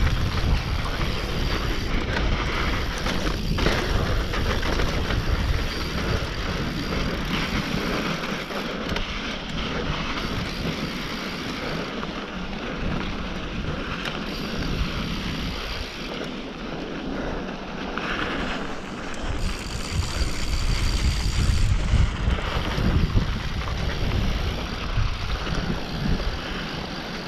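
Mountain bike riding down a dirt trail: wind rushing over the microphone, with the rumble and rattle of the tyres and bike over the rough ground. The rumble eases for a while midway and grows stronger again later on.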